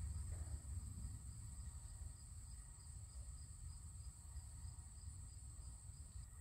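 Faint background noise: a low rumble under a thin steady high whine and a soft high pulse repeating evenly a few times a second.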